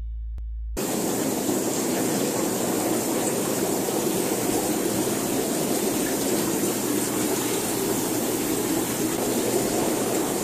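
Steady rushing of water and pumps from aquarium filtration and aeration, starting about a second in as the last low note of music fades.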